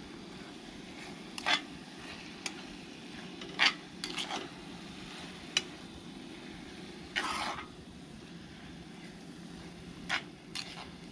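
A metal spoon stirring seasoned ground beef taco meat in a pan on a camp stove, scraping and clinking against the pan about ten times, with one longer scrape about seven seconds in, over a steady low background.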